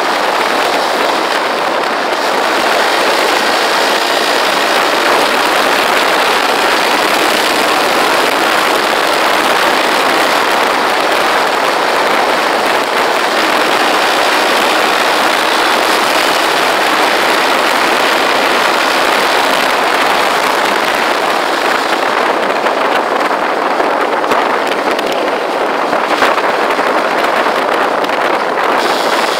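Motorcycle riding along a road, heard from a mic mounted on the bike: a steady rush of wind and road noise mixed with the engine running.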